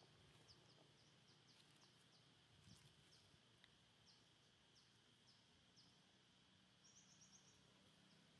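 Near silence with faint outdoor ambience: a small bird's high, short chirps repeating about twice a second, with a quick run of chirps near the end.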